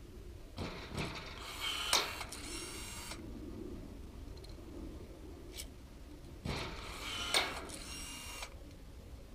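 Cordless rivet gun setting two pop rivets into an aluminum plank's end cap. Each rivet is a whir of the motor pulling, a sharp snap as the mandrel breaks, then a brief whir as the tool resets.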